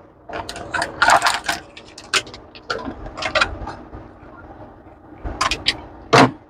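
Plastic packaging handled by hand: a thin plastic food tray crinkling, clicking and knocking as cleaned prawns are tipped from it into a plastic bowl, with a sharp knock near the end.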